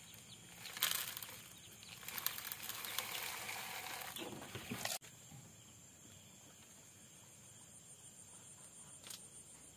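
Plastic bag crinkling and rustling as chicken feed is shaken out of it into a feeder trough, with a sharp crackle about a second in; the rustling stops abruptly about five seconds in. Afterwards only a faint, high, even pulsing remains.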